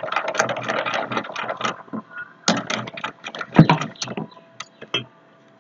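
A spoon stirring maida batter in a metal bowl, with irregular clicking and scraping of the spoon against the bowl, busy at first and sparser later, dying away near the end.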